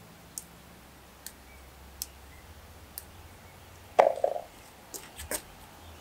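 Handling sounds: faint scattered clicks about once a second, then a louder knock about four seconds in, followed by a few more clicks.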